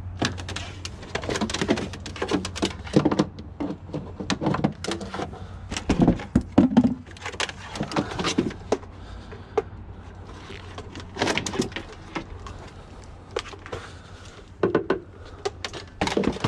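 Irregular knocks, clunks and rattles of scrap electronics and their cords being handled and loaded into a van, mixed with footsteps on gravel.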